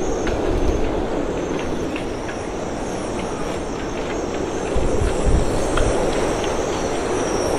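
Storm-force wind roaring through a marina's moored sailboats, with a thin, steady high whistle from the rigging and scattered sharp ticks. The gusts buffet the microphone with a deep rumble, swelling about five seconds in.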